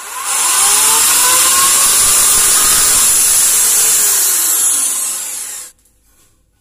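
Corded electric drill boring into a ceramic wall tile: the motor spins up at the start, runs steadily at speed, and stops abruptly about five and a half seconds in.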